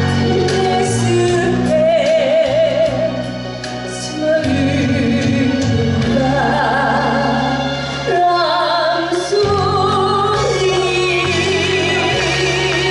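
A woman singing a slow Korean ballad over a backing accompaniment, holding long notes with a wide vibrato.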